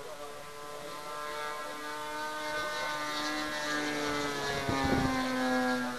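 Twin engines of a radio-controlled P-38 Lightning model plane flying past. The engine note grows louder and slides down in pitch, loudest about five seconds in.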